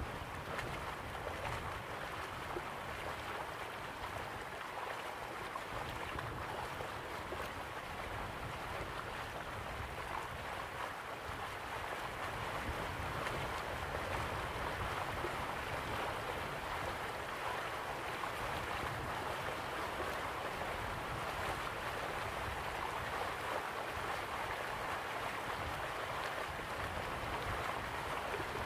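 Steady rushing of river water moving past the bank, with wind rumbling on the microphone.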